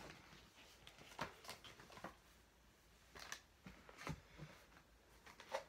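Near silence with a scattering of faint, short clicks and rustles of objects being handled and set down.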